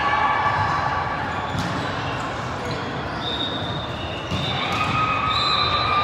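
Busy volleyball gym in a large indoor hall: a steady din of players and spectators calling out, with a few sharp ball hits on top. The calls grow louder about four seconds in.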